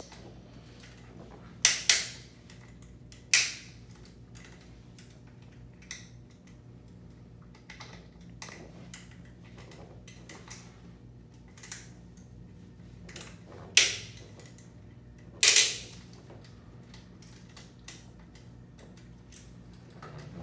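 Sharp metal clicks and clacks from a prosthetic leg being adjusted with a hand tool at its pylon and foot fittings: about five loud ones, scattered unevenly, with fainter ticks between, over a steady low hum.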